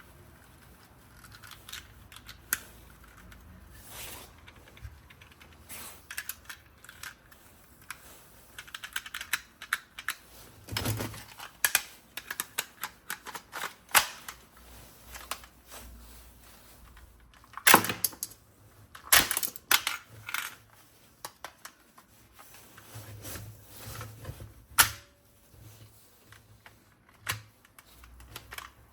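Irregular sharp clicks and knocks from a toy gun being handled, with clusters of louder snaps in the second half.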